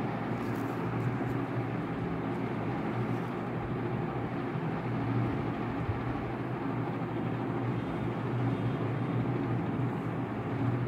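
Steady low hum with an even rushing noise that runs unchanged, like a running machine or fan in the room.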